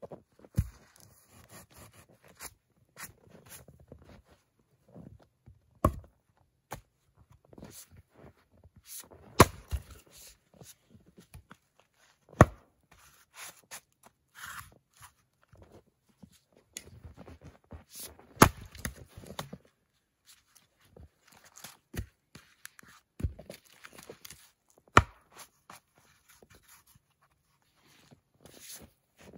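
Axe splitting firewood on a stump chopping block: sharp knocks at irregular intervals, about eight in all, with quieter crunching of footsteps in snow and split pieces being handled between the strikes.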